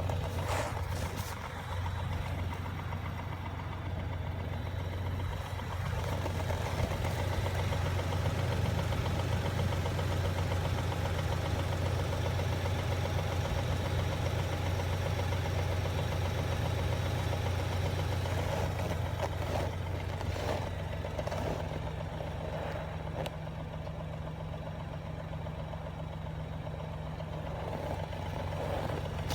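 2017 Ford Raptor's 3.5-litre twin-turbo EcoBoost V6 idling steadily on a cold start at −26 °C. A slight engine knock runs through it, which the owner puts down to long-running cam problems.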